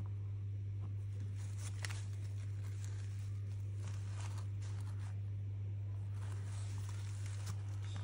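Faint, scattered soft taps of a wide acrylic paint marker dabbing small marks onto a canvas panel, over a steady low hum.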